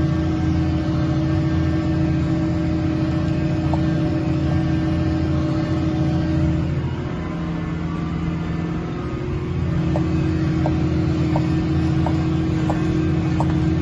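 Tractor engine running steadily under load while pulling a Horsch seed drill, easing slightly about halfway, then back up. A few faint short ticks come in over the last few seconds.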